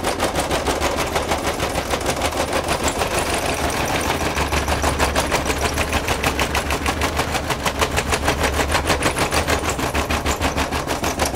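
Zanussi ZTE 273 condenser tumble dryer running mid-cycle with a loud, rapid, even knocking rattle, about six or seven knocks a second, as the drum turns. The owner traced the noise to worn drum support rollers.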